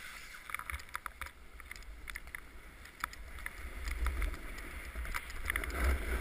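A snowboard sliding and scraping over packed snow, with a low rumble and many short ticks. It grows louder about two-thirds of the way through as the board carves harder.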